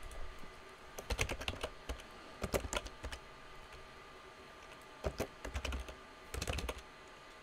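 Keystrokes on a computer keyboard, typed in short bursts with pauses between.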